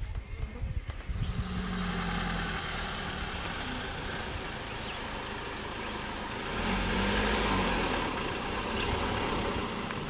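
A motor vehicle's engine running steadily at idle, rising briefly in level and pitch about seven seconds in before settling again. A few faint high chirps sound over it.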